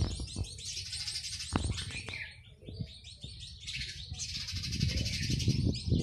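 House sparrows chirping in fast chattering runs, thickest in two bouts, over a low rumble with a few dull thuds that grows stronger near the end.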